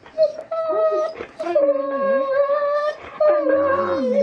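Siberian husky howling in three or four long, held notes: a steady higher pitch with a lower tone wavering beneath it, with brief breaks between notes.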